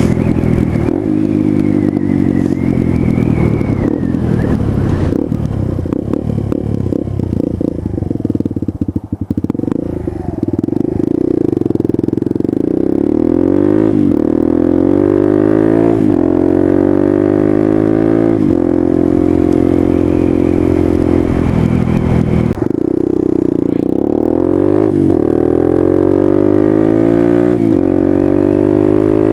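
Suzuki DR200's single-cylinder four-stroke engine through a DG O-Series aftermarket exhaust while being ridden. It accelerates several times, its pitch rising and then dropping back at each gear change, with a rougher, clattering stretch about a third of the way in.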